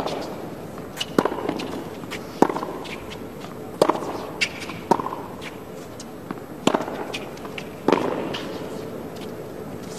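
Tennis rally on a hard court: the ball struck back and forth by rackets, a sharp pop every second or so.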